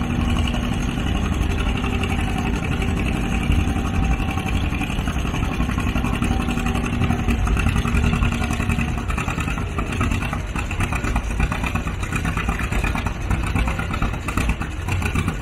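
An engine running steadily and loudly, its firing heard as a fast, continuous pulse.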